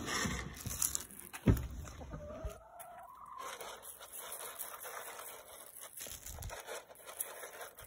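A hen clucking, with one drawn-out call that rises in pitch a couple of seconds in. A thump about a second and a half in.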